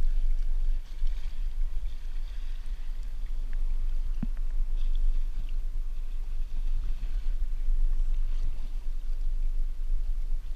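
Low, fluttering rumble of wind on the microphone aboard a boat, over a faint wash of water.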